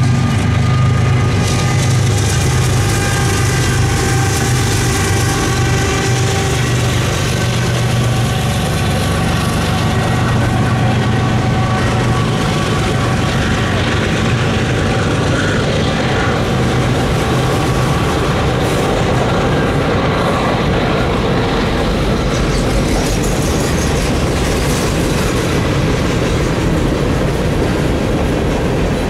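Freight train of boxcars rolling past, steel wheels on rails giving a steady rumble and clatter. A steady hum underlies it for the first dozen seconds, then fades.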